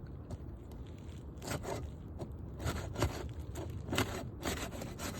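Asphalt roof shingles being pried apart, the sealant strip tearing and scraping loose in several short rasping pulls.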